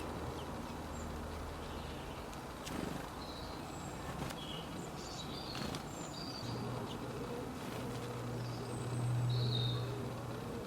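Short, high chirps from small birds, scattered irregularly throughout, over a low steady drone that grows louder about two-thirds of the way in.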